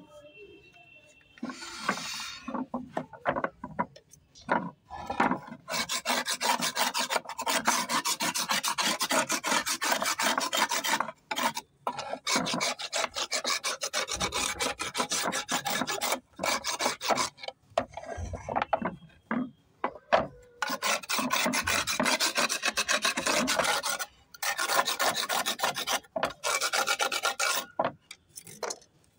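Serrated knife blade scraped quickly back and forth across the face of a pink shale stone slab, a dry rasping in long runs of several seconds with brief pauses. In the first few seconds, scattered clicks and knocks as the stone slabs are handled.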